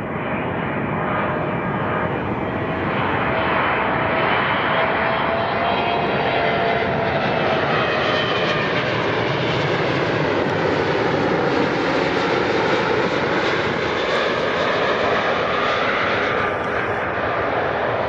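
Jet airliner's engines passing close by. The noise swells over the first few seconds, holds loud with whining tones that glide slowly in pitch, and eases a little near the end.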